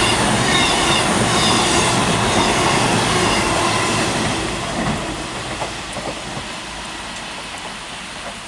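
A train running through the station without stopping: a loud rush of wheels on the rails with clickety-clack, falling away over the second half as it recedes. A faint high wheel squeal sounds in the first few seconds.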